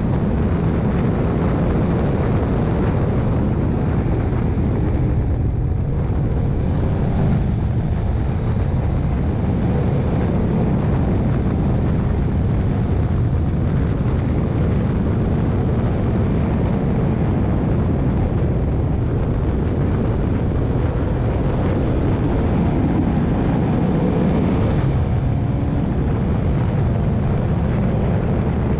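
Touring motorcycle on the move: a steady engine note under heavy wind rush on the microphone, with the engine pitch rising and falling gently through the bends.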